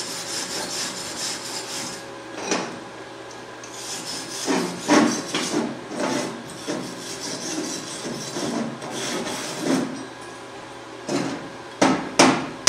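Steel wire brush scrubbing the slag and spatter off a fresh flux-core weld bead on steel plate, in bursts of quick strokes. A few sharp knocks near the end.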